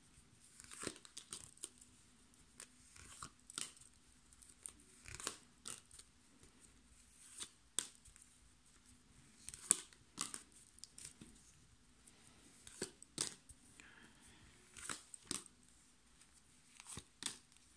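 Tarot cards being handled and laid down one at a time onto a spread: quiet, irregular card snaps and short papery slides, about one every second or two.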